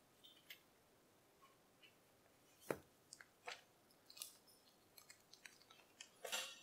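Faint rustling of paper sheets and small handling clicks as papers are shuffled on a desk, with a sharp knock nearly three seconds in and a louder paper rustle near the end.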